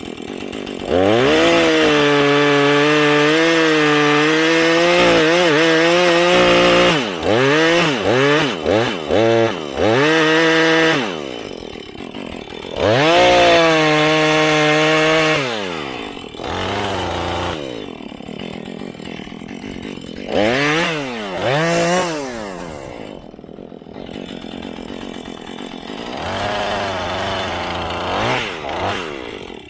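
Husqvarna 435 two-stroke chainsaw cutting a tree: held at full throttle for several seconds at a time, with a run of quick blips in between, then dropping to idle with a few short revs near the end.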